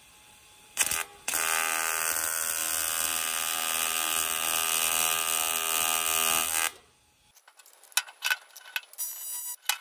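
TIG welding arc tacking a turbo cold-side pipe joint: a short burst about a second in, then a steady buzz for about five seconds that cuts off suddenly. A few light knocks and clicks follow as the pipe is handled.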